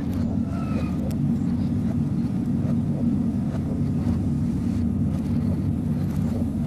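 Running noise of an electric train heard inside the driver's cab: a steady low rumble with a few faint ticks from the track.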